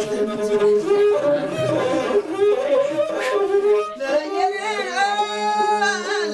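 Traditional Ethiopian music: a singer holding long, wavering notes that bend up and down, over a string instrument playing steady notes. A long held vocal note comes near the end.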